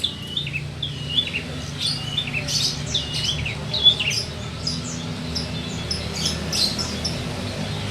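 Lovebird calling over and over in short, shrill chirps and squawks, with a low steady hum underneath.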